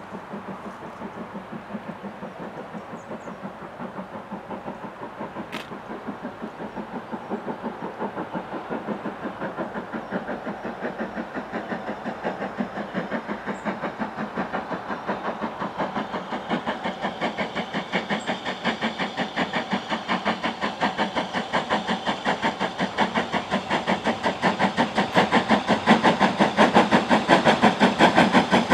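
Steam locomotive approaching, its exhaust beats coming in a fast, even rhythm and growing steadily louder.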